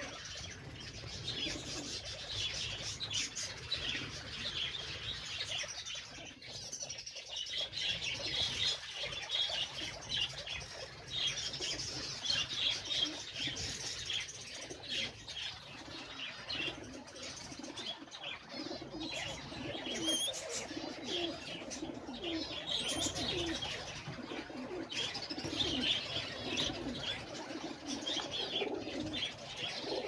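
Many caged birds chirping and twittering together without a break, with a lower, rhythmic cooing in the second half.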